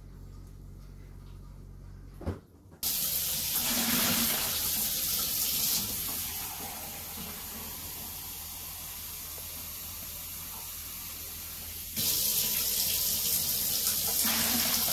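Water from a kitchen faucet running into a measuring cup in the sink. It starts abruptly about three seconds in, just after a click. The rush softens after a few seconds and grows louder again near the end.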